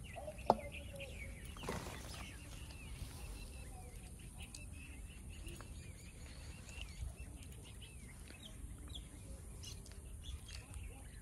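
Small birds chirping and calling again and again around a pond, with a sharp click about half a second in and a brief rustle just before two seconds.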